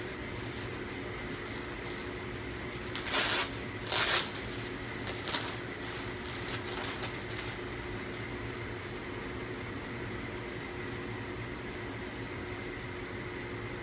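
Clear plastic clothing bag being torn open and crinkled by hand: two loud, short rips about three and four seconds in, then a few softer rustles. Underneath, a steady room hum with a faint high whine.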